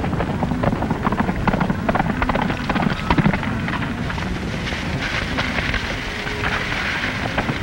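Several horses galloping, a dense, steady clatter of hoofbeats.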